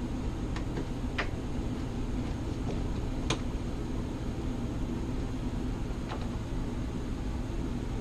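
Steady low hum of a running indoor HVAC air handler. A few sharp metallic clicks come from a hand screwdriver driving the screws back into its sheet-metal access panel.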